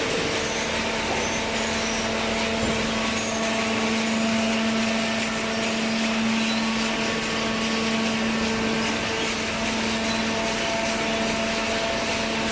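Hydraulic baler's electric motor and pump running steadily: an even mechanical hum with a held low tone and a hiss of noise above it.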